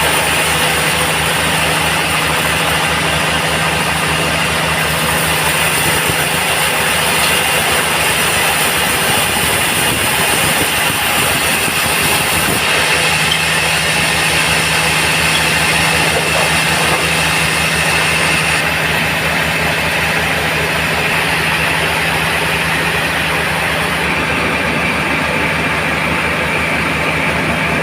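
Band sawmill running at a steady pace, its engine pulsing evenly under the sawing noise of the machine. The sound changes abruptly a few times.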